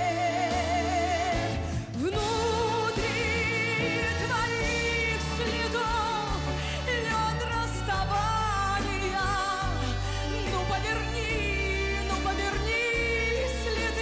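Live singing of a slow pop ballad over band accompaniment. A long held note with wide vibrato breaks off about two seconds in, and long sustained sung phrases follow.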